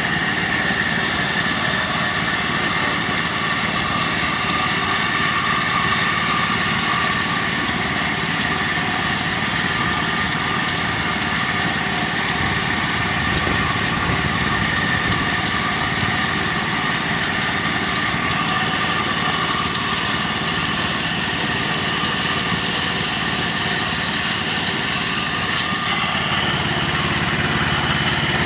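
Small engine running steadily as the power of a half-scale sawmill, with steady high whining tones over it. The lower part of the sound grows slightly stronger near the end.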